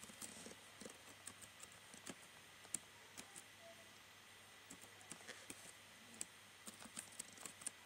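Faint, irregular keystrokes on a computer keyboard, with a short pause about halfway through.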